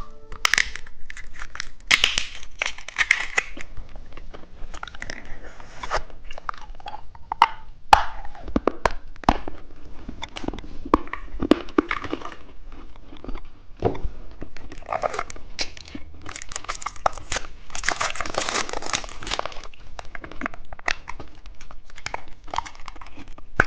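Plastic candy wrappers being crinkled and torn open by hand, with many sharp crackles and clicks.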